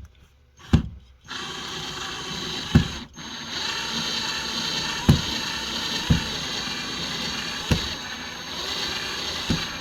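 Hart 20-volt cordless drill running slowly as it drives the Phillips mounting screws of a new wall receptacle, with a brief stop about three seconds in and a few low knocks.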